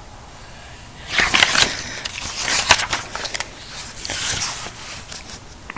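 Paper rustling and crackling with sharp clicks as a picture book is handled and its page turned. It starts about a second in and dies down near the end.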